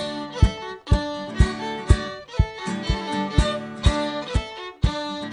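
Instrumental passage of an Irish folk tune on fiddle and acoustic guitar, with no singing. A steady beat of about two strokes a second runs underneath.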